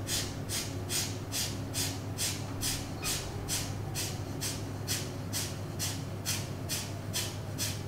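Kapalbhati breathing: a long run of quick, forceful exhalations through the nose, a sharp hissy puff about two and a half times a second, with no audible in-breath between them. A low steady hum lies underneath.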